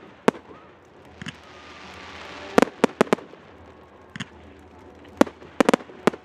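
Fireworks display: about ten sharp bangs of aerial shells bursting, several in quick clusters about two and a half seconds in and again near the end, with a hiss building just before the first cluster.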